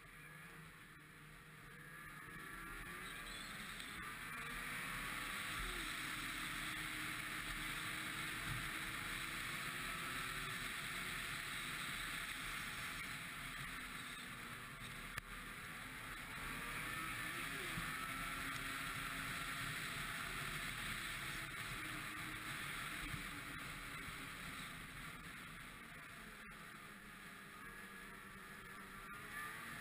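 Ski-Doo MXZ 600 snowmobile's two-stroke engine running under way, its pitch rising and falling as the throttle changes, over a steady hiss of track and snow. It builds up over the first few seconds and eases off twice, about halfway through and again near the end.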